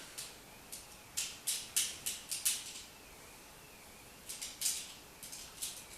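Sharp clicks of a plastic Beast Wars Neo Longrack transforming figure being handled as its body is rotated, coming in two short flurries.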